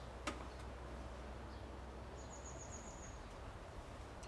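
Quiet rural outdoor ambience with a steady low background noise. A single sharp click comes just after the start, and about halfway through a small bird gives a quick high trill lasting about a second.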